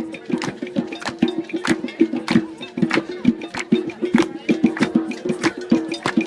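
Didgeridoo playing a steady drone, with sharp tapping percussion beating at roughly three strokes a second.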